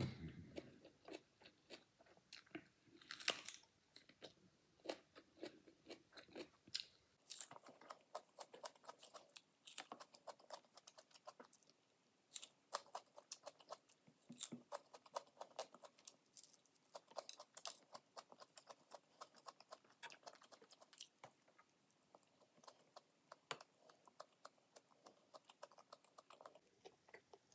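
Faint close-up chewing and crunching of raw mini sweet peppers: many small, irregular crisp crunches and mouth clicks.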